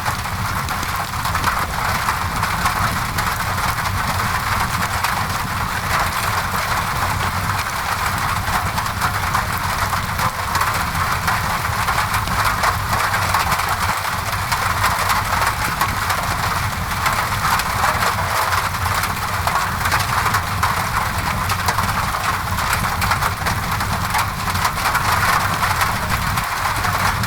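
Steady rain pattering on a window, mixed with a fireplace crackling in small snaps, over a constant low rumble.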